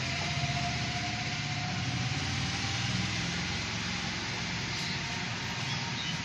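A steady mechanical hum with an even hiss, running without a break.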